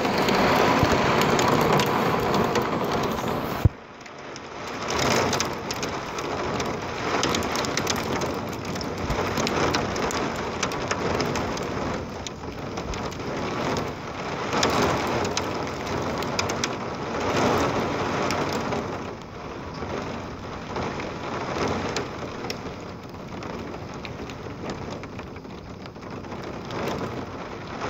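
Heavy rain mixed with small hail, a dense patter of drops and hailstones striking the window and yard. A single sharp click about four seconds in, after which the patter is briefly quieter before building again.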